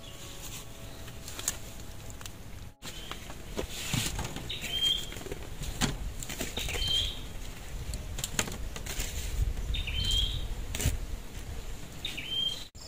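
Freshly picked fruit and vegetables being set down and shifted on woven bamboo trays, making light knocks and rustles. A bird gives a short chirp four times, every two to three seconds.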